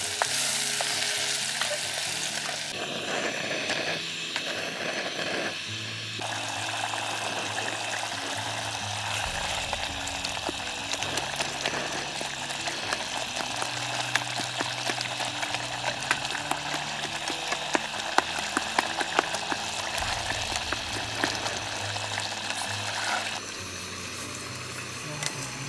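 Onion-tomato masala sizzling and crackling in a pot on a portable gas camping stove as it is stirred with a wooden spatula, under soft background music. The sizzle drops away near the end.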